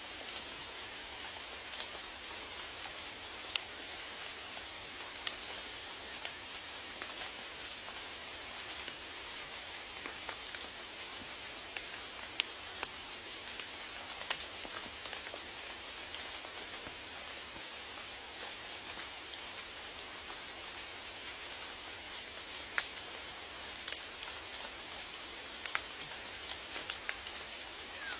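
Steady rain falling, an even hiss with scattered louder drops ticking close by.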